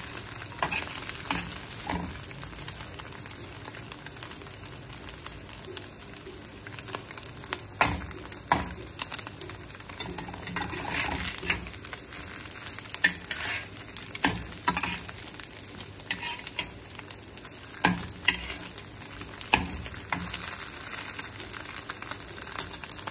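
Egg frying in hot oil in a pan, sizzling steadily as it starts to take light colour. A spatula scrapes and taps against the pan now and then while the egg is broken up and turned.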